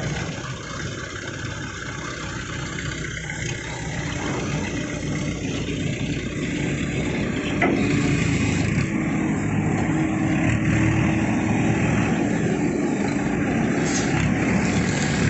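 Diesel engine of an Escorts TRX 1550 pick-and-carry (hydra) crane running steadily, growing louder about halfway through.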